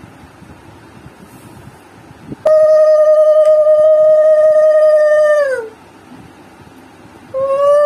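Conch shell (shankha) blown in a long steady note of about three seconds that sags in pitch as the breath runs out; a second blast begins near the end.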